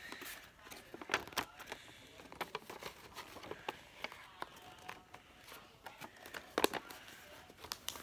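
A sheet of paper being folded and creased by hand into a paper plane: irregular crinkles and rustles, with one sharper crackle about two-thirds of the way through.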